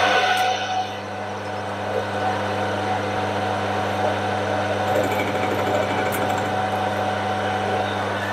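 Metal lathe running with a steel bar turning in its chuck, giving a steady motor and gear hum that settles about a second in.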